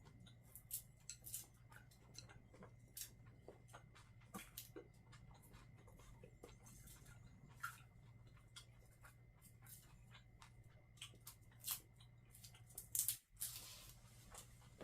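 Faint, irregular crackling and ticking over a low steady hum.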